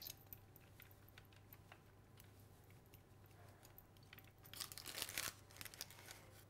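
Faint handling sounds of a metal measuring spoon scooping and sprinkling ground cumin: light clicks and scrapes, with a short louder patch of scraping and rustling about five seconds in.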